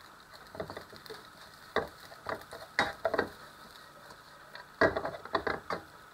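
Spatula scraping and knocking in a non-stick frying pan as fried rice is stirred and broken up, in irregular strokes with a quick run of them near the end.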